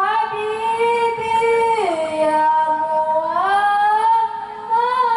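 A boy singing alone into a microphone through a PA, without accompaniment, in a high voice: long held notes that slide down about two seconds in and climb back up after three seconds.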